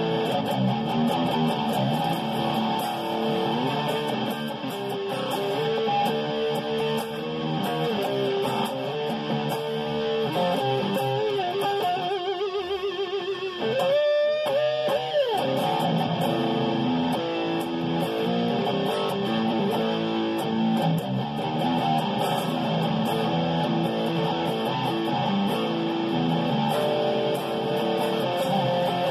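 Seven-string electric guitar, a Schecter Damien Elite 7 neck and hardware on a homemade ML-style set-neck body, played in a continuous stream of riffs and lead lines. About halfway through comes a quick run of rapidly repeated notes, then a wavering pitch bend.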